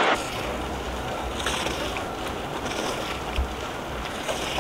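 Light rain falling steadily, with wind rumbling on the microphone. A louder burst of rain hiss cuts off abruptly right at the start, and a few faint ticks sound through the rain.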